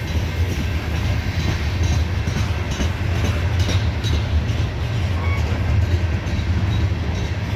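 CSX coal hopper cars rolling past close by: a steady heavy rumble of steel wheels on the rails, with a couple of faint brief squeals about five seconds in.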